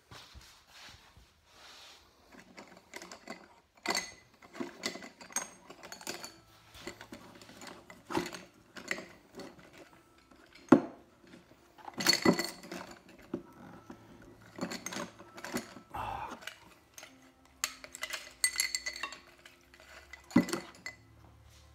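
Metal painting knife clinking and scraping against hard surfaces in irregular, scattered taps, with a few louder clinks.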